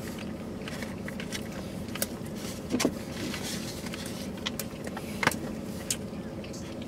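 Steady hum of a car idling, heard from inside the cabin, with a few small clicks and rustles from handling takeout food while eating. The sharpest click comes a little past five seconds in.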